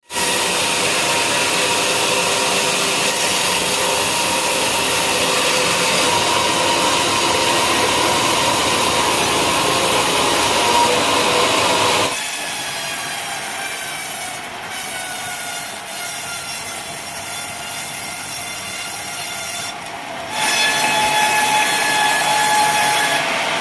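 Sawmill blade cutting through wadang timber, a loud steady sawing noise. About 12 s in the cut stops and the sound drops to a quieter run with a slowly falling whine, then the loud sawing starts again near the end.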